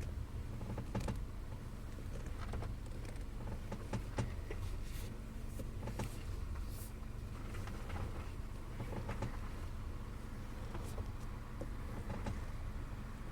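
Skoda Octavia A7 steering creaking as the wheel is turned: short, irregular creaks over and over, over the steady low hum of the car.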